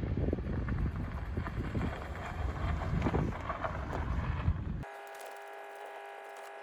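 Wind buffeting the microphone, with scattered knocks and rustles. About five seconds in it cuts off abruptly to a quieter steady hum made of several held tones.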